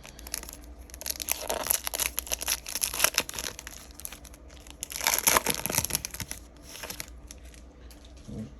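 A trading-card pack's wrapper being torn open and crinkled. There are two spells of crackling, a longer one in the first few seconds and a shorter one about five seconds in.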